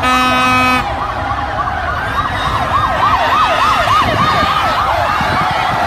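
Sirens warbling, several at once, their pitch sweeping up and down quickly, over a steady wash of noise. A steady horn note cuts off about a second in.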